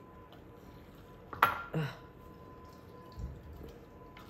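Hinged handheld lemon squeezer pressing half a lemon over a small ceramic bowl: a sharp click about a second and a half in, a softer knock just after, and lemon juice dripping into the bowl.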